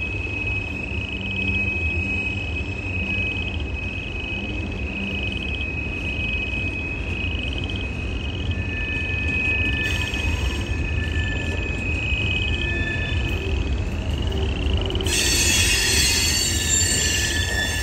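Freight train cars rolling past with a steady low rumble of wheels on rail, over a high-pitched wheel squeal that pulses in a rising chirp a little faster than once a second. About fifteen seconds in, a harsher, hissing high screech joins it.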